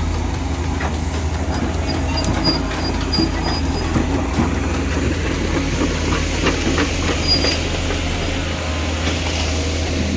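Komatsu hydraulic excavator's diesel engine running steadily, with irregular metallic clanks and knocks and two brief high-pitched metal squeals, one about two seconds in and another past the seventh second.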